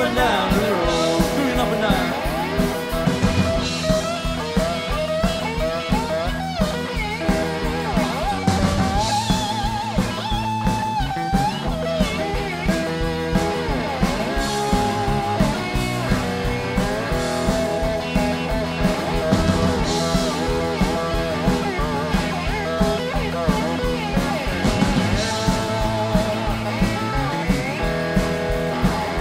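Live blues band playing electric guitars, bass and drums with a steady beat, the lead guitar bending notes.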